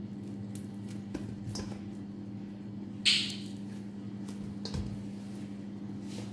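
Faint handling sounds of oiled hands dividing bread dough in a stainless steel bowl, over a steady low hum. About three seconds in there is a single short, sharp rustle.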